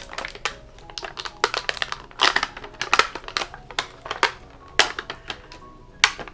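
Toy packaging crinkling and crackling as it is opened by hand, in an irregular run of sharp crinkles and clicks.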